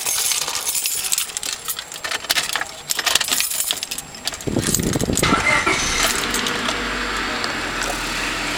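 Keys rattling in a Honda Civic's ignition. About halfway through, the starter cranks briefly and the engine catches, settling into a steady idle.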